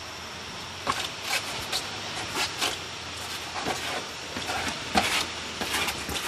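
Movement sounds of a wooden staff form: a series of short, irregular swishes and scuffs from the long staff being swung and thrust, the feet stepping and pivoting on a rubber court, and the loose uniform rustling.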